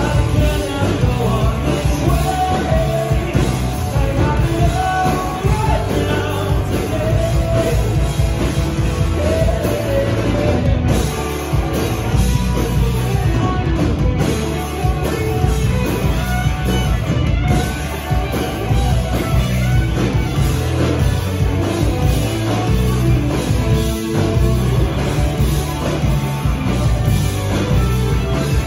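Rock band playing live through a club PA, heard from the audience: electric guitars, bass and drums, with a male lead voice singing over them, mostly in the first part.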